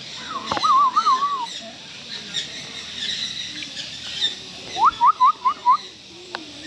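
Loud, clear whistles: one wavering whistle about half a second in, then a run of five quick rising whistles near the five-second mark, over steady high chirping from many birds.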